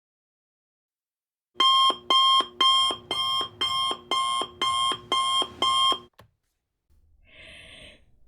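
Alarm clock beeping: nine electronic beeps, about two a second, starting about a second and a half in and stopping about six seconds in. A faint click and a short faint hiss follow near the end.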